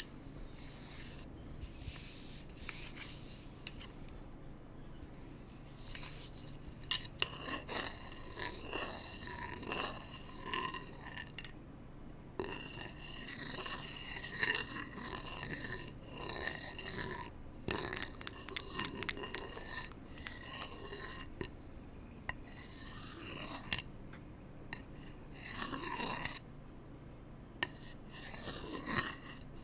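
Close-miked ASMR trigger sounds: irregular scraping and rubbing on hard objects, with short clicks and taps in between.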